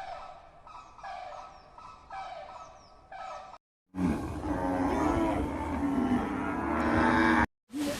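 Animal calls from two clips cut together: a run of about four short calls, then, after a brief silent cut, a louder, longer call.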